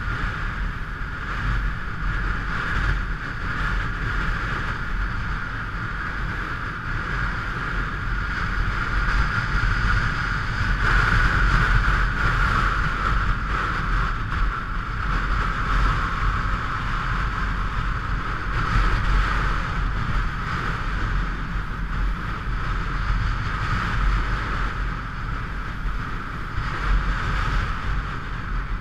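Steady rush of wind and low rumble from a motorcycle on the move, picked up by a camera mounted on the bike or helmet.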